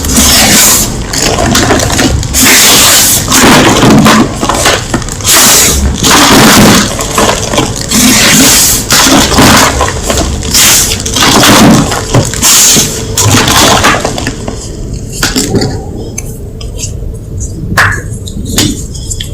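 Gym chalk being crushed, repeated loud crunching and crackling about once or twice a second, turning quieter with only a few scattered cracks in the last few seconds.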